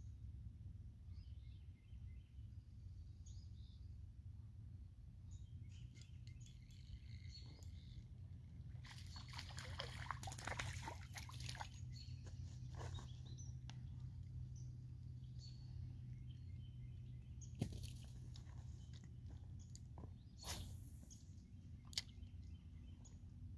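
Quiet outdoor background with a steady low rumble and faint scattered bird chirps. About nine seconds in, a few seconds of rustling from footsteps on dry pine needles, and near the end three sharp clicks.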